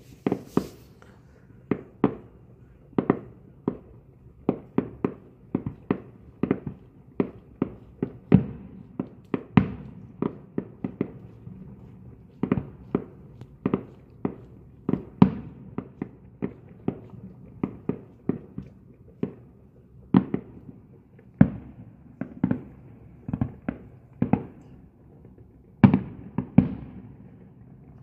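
Aerial fireworks display: a continuous series of shell bursts, irregular sharp bangs about one or two a second, each trailing off in a short echo, with a louder pair of bangs near the end.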